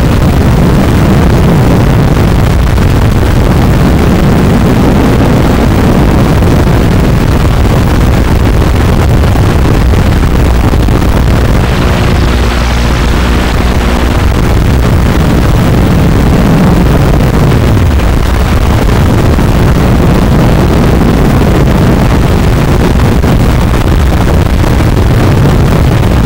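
Loud motor of a small remote-controlled vehicle, picked up by its onboard camera microphone, running continuously with its pitch rising and falling as the throttle changes.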